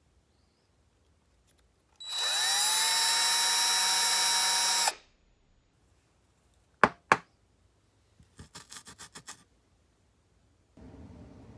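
A small high-speed power tool, of the drill or rotary-tool kind, spins up with a rising whine, runs steadily for about three seconds and winds down. Two sharp clicks follow, then a quick rattle of about eight light clicks, and a low steady hum starts near the end.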